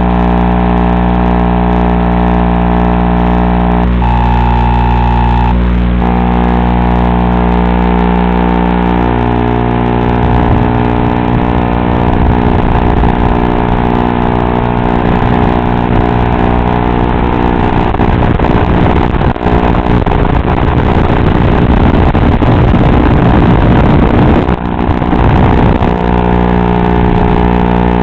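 Electronic buzz and static on the audio channel of an analog FPV video feed recorded by the goggles' DVR. Steady humming tones for about the first ten seconds, then loud crackling static over the hum.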